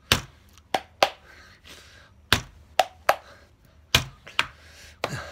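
About ten sharp taps on laptop keys, unevenly spaced, on a keyboard whose E, D, C and 3 keys do not type.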